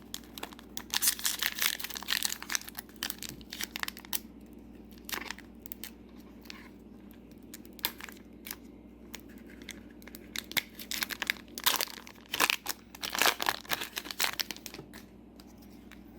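Foil trading-card booster pack wrapper being torn open and crinkled. The crackling comes in two spells, one near the start and a longer one in the last third, with quieter rustling between them.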